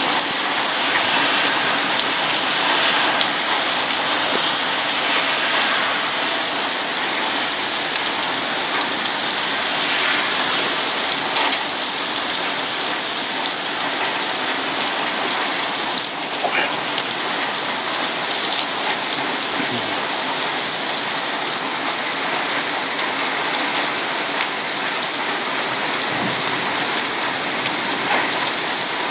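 Heavy rain pouring down steadily in a thunderstorm, a dense even hiss of drops on surfaces, with a few faint single ticks of drops or hailstones striking.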